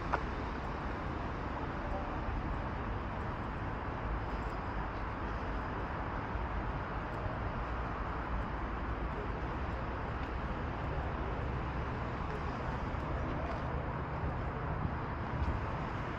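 Steady outdoor background noise with a constant low hum of road traffic, even throughout, with no distinct events.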